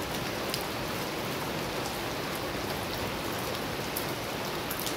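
Heavy rain falling onto floodwater running down a street: an even hiss with scattered sharper splashes of single drops.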